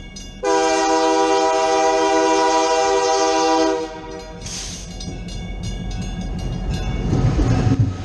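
Steam locomotive whistle blowing one steady, many-toned blast of about three seconds, followed by a short burst of steam hiss, a run of clicks, and a low rumble that grows louder toward the end.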